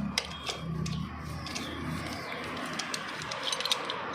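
Light clicks and taps of small metal engine parts being handled, with a cluster of clicks about three and a half seconds in, over a faint steady hiss.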